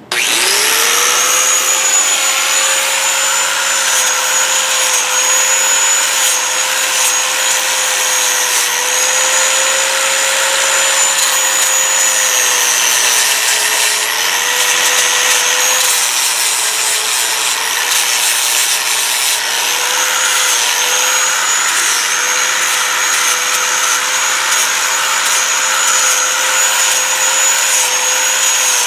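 Electric angle grinder with a sanding disc starting up with a rising whine, then running steadily as it sands a chainsaw-carved wooden pumpkin, the disc rasping on the wood. The pitch sags briefly a little past halfway through.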